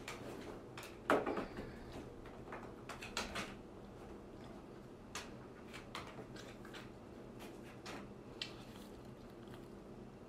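Faint, irregular clicks of a computer mouse and keyboard during CAD work, with one louder knock about a second in, over a low steady hum.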